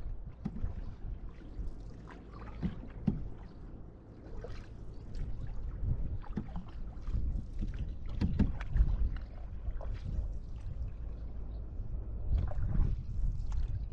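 Canoe paddle dipping and pulling through river water in irregular strokes, with small splashes and water lapping against the hull, over a steady low rumble.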